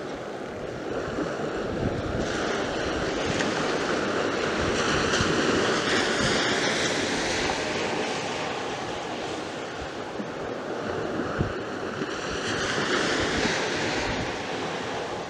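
Surf breaking and washing up a sandy beach, swelling louder twice, about two seconds in and again near the end, with wind buffeting the microphone.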